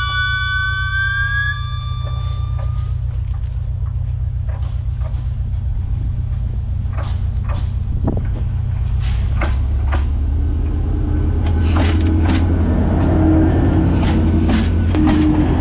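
Diesel locomotive approaching and passing close by: a steady low engine drone, with a held multi-tone horn during the first couple of seconds. About ten seconds in, the rumble grows louder and sharp clicks from the wheels on the rail joints come in as the locomotive runs past.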